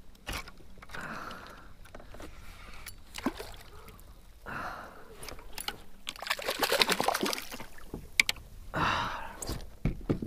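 Water splashing and sloshing beside a kayak as a hooked bonito is reeled up to the surface, in several short washes, the biggest about six seconds in, with scattered light clicks of tackle handling.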